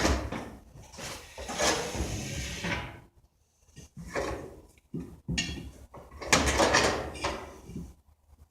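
Scraping and rubbing as a lawn mower tire is worked by hand, in three main bursts: one about 1.5 s in, a shorter one around 4 s, and the loudest about 6 to 7.5 s in.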